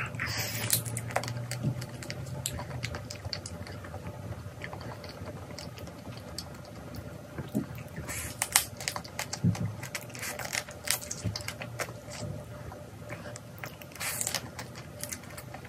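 A person biting into and eating spicy marinated raw crab, with many sharp wet clicks and smacks of mouth and shell.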